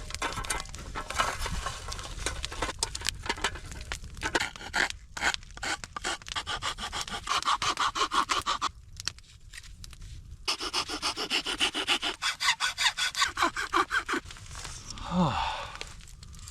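Hand saw cutting wood in quick back-and-forth strokes, about five a second, stopping briefly midway and then resuming.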